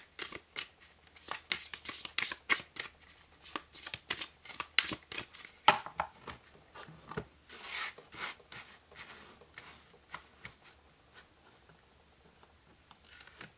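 A deck of oracle cards being shuffled by hand: a quick run of card clicks and swishes for about the first seven seconds. Then softer, sparser sliding strokes as the cards are spread out on the table, fading toward the end.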